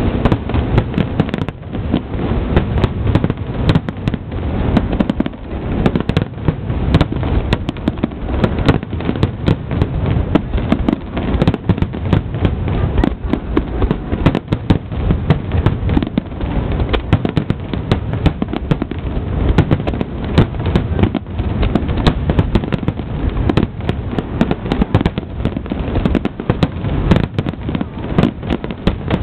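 Fireworks display: a dense, continuous barrage of aerial shell bursts, booms and crackling going off several times a second with no break.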